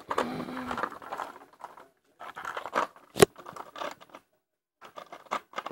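Plastic Lego pieces rattling and clicking as hands handle them and press them onto a Lego boat, with one sharp snap about three seconds in.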